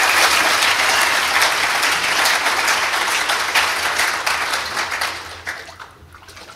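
Congregation applauding: a dense clatter of clapping that thins out and dies away about five seconds in, leaving a few scattered claps.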